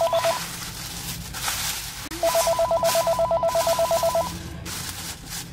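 Phone ringing with a rapidly warbling two-tone trill. One ring ends just after the start, and a second ring of about two seconds starts about two seconds in.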